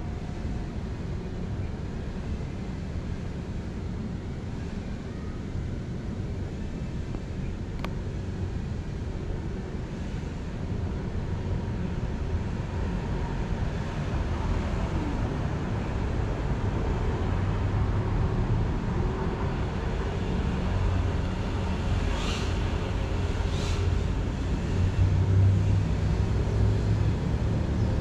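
Steady low outdoor rumble that grows louder in the second half, with two brief clicks near the end.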